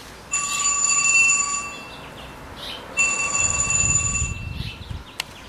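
A telephone ringing: an electronic ringing tone that sounds twice, each ring lasting about a second and a half with a gap of about a second between. A low rumble comes in under the second ring, and there is a single sharp click near the end.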